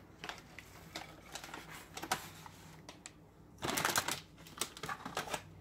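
Dried cranberries being added to a salad bowl: scattered light clicks and rustles, with a denser patter of clicks a little before four seconds in.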